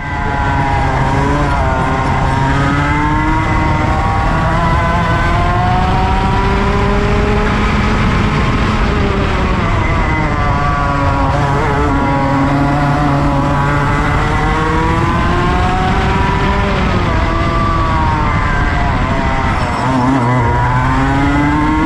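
Go-kart engine running hard on track, its pitch climbing and falling repeatedly as the driver accelerates and brakes through the corners, heard from onboard the kart.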